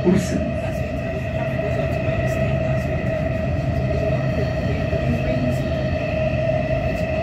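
Warsaw Metro train running at steady speed through the tunnel, heard from inside the car: an even rumble with a steady high electric whine over it.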